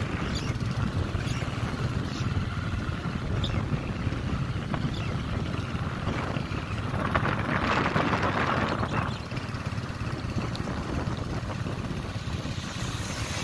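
A vehicle engine running steadily at road speed, heard from the moving vehicle, with road and wind noise on the microphone and a brief swell of noise about two thirds of the way through.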